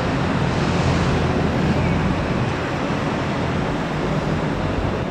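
Steady city background noise: a continuous, even roar with a low hum underneath, unbroken throughout.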